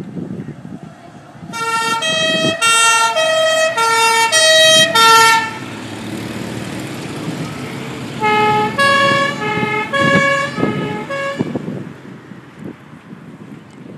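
Two-tone French-style sirens sounding in two spells, each switching back and forth between a high and a low note about every half second. The second spell is at different pitches. Motorcycle engines pass underneath.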